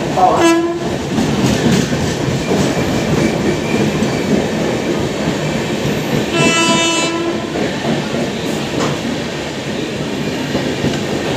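Arriving express train's passenger coaches running past along the platform, a steady noise of steel wheels on the rails as the train pulls in. A short horn blast sounds about six and a half seconds in.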